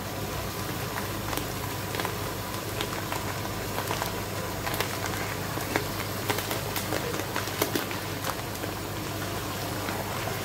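Pot of goat stew simmering on the stove, with many small pops and crackles scattered over a steady bubbling hiss, while dry basmati rice is poured in by hand.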